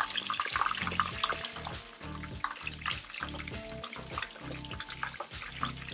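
Whole sea bass deep-frying in hot oil: a steady sizzle with dense crackling from the bubbling oil, over background music with a beat.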